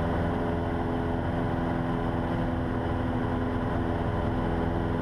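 Cessna 150's four-cylinder Continental O-200 engine and propeller running steadily at takeoff power during the climb-out, heard from inside the cabin.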